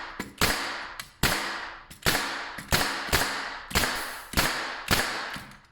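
Freshly rebuilt Hitachi (Metabo) NR65AK2 pneumatic metal-connector nailer firing nails in quick succession, about a dozen sharp shots at two to three a second, each with a short fading tail. The rebuilt gun is cycling properly and driving the nails all the way in.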